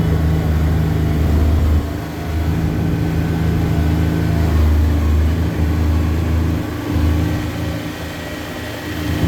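Car engine running and revving up and down while the car does donuts on snow. The drone drops back about two seconds in and again near the end, then picks up.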